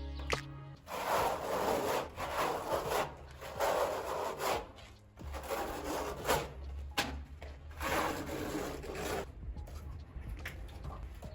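A hand tool rubbing or scraping across a hard surface in long back-and-forth strokes, about six strokes a second and a half apart, stopping near the end.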